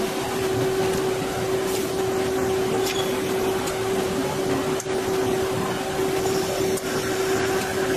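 Tongtai TGL-15 inverted-spindle CNC turning center running: a steady whine over an even machine noise, with a few faint clicks.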